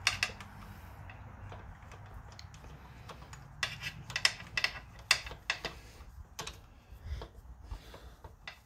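Irregular light metallic clicks and taps as bolts are run in by hand inside an open small-engine crankcase.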